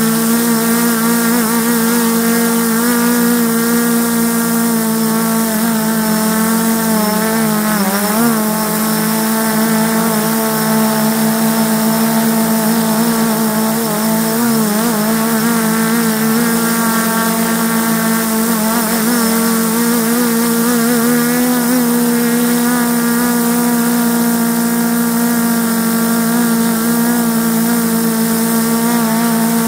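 A small multirotor FPV drone's electric motors and propellers humming steadily at one pitch, heard from on board, over a steady hiss. The pitch wavers briefly about 8 seconds in and again about 15 seconds in.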